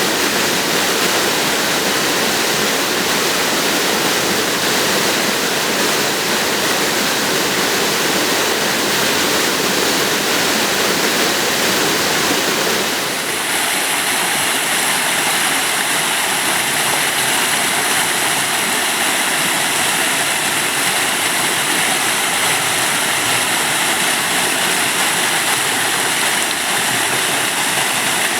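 Waterfall rushing steadily and loudly; the sound changes abruptly about halfway through to a different rush, as from another fall.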